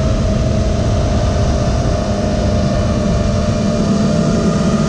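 Motor and propeller of an FPV model aircraft buzzing at a steady pitch, heard from the onboard camera, with wind buffeting over the microphone.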